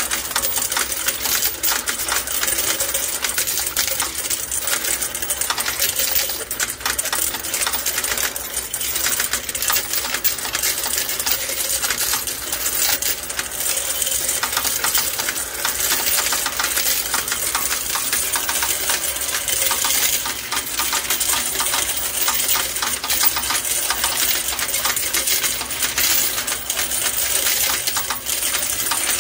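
Coin-counting machine running, its spinning disc sending coins out into a perforated metal tray in a steady, rapid clatter of clinking coins.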